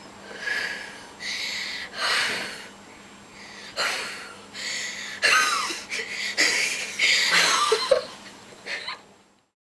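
Repeated breathy puffs of someone blowing out the candles on a birthday cake, with a few short laughs mixed in; the sound cuts off suddenly near the end.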